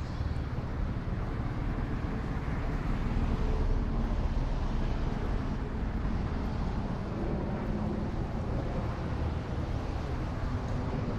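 Steady street background noise: a hum of road traffic, with a low wind rumble on the microphone.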